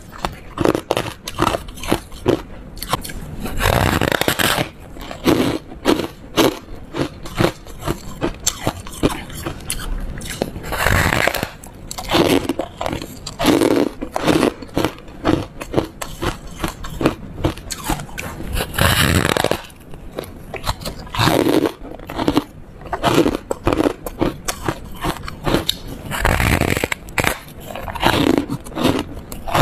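Close-up crunching and chewing as a person bites into a disc of frozen foam ice: crisp crackly crunches with several louder bites spread through.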